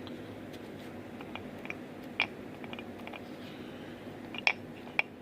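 Small scattered clicks and taps from a paintbrush and a small iron buckle being handled while rust reformer is brushed on, with sharper clicks about two seconds in and twice near the end, over a steady low hum.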